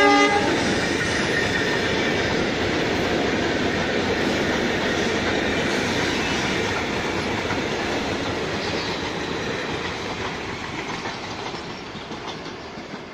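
Railway milk tank wagons of a freight train rolling past at speed: a steady rolling noise of wheels on the rails that fades as the train draws away near the end. A horn's last note cuts off right at the start.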